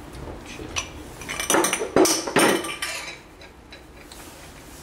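Removed chrome washbasin mixer faucet clinking and knocking as it is lifted off the basin countertop and handled. Several sharp metallic clinks, bunched together in the middle.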